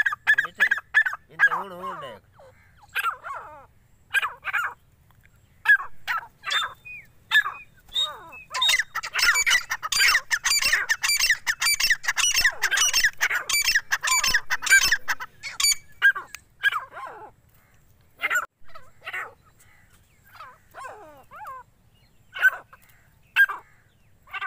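Four-month-old grey francolin chicks calling: short, sharp calls from several birds. In the middle they run together into a dense stretch of rapid, overlapping calls, then thin out to scattered single calls again.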